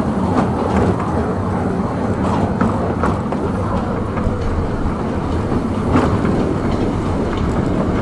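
Small narrow-gauge park train running along its track: a steady rumble of wheels on rails, with a few clicks as it passes over rail joints.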